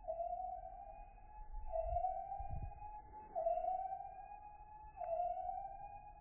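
Dock Lifeguard electric-shock-drowning alarm sounding: a siren tone that rises in pitch and drops back, repeating about every second and a half. It signals electricity detected in the water around the dock.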